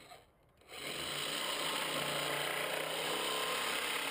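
Corded reciprocating saw starting up about a second in and running steadily, its blade cutting into a 4-inch polyethylene pipe.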